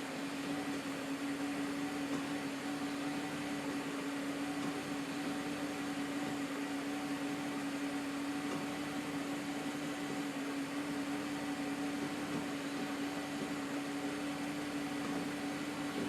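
Car engine idling steadily, a constant hum with one steady tone, while the newly replaced DSG gearbox is shifted between gears; no clunk is heard from the transmission.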